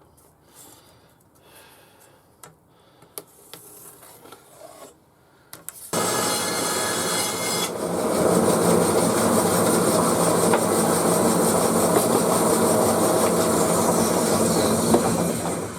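A power saw cutting through wood, starting suddenly about six seconds in and running steadily for about nine seconds before stopping. Before it there are a few light knocks of wood being handled.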